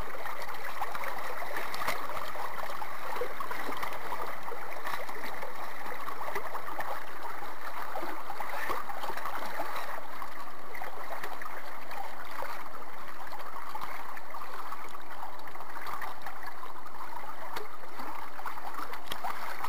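Water rushing and splashing steadily along the hull of a small sailing dinghy under way.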